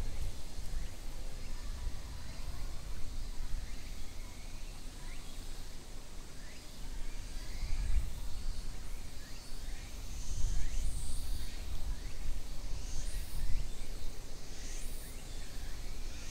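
Outdoor ambience: a steady low rumble with many short, high bird chirps scattered through it, more of them in the second half.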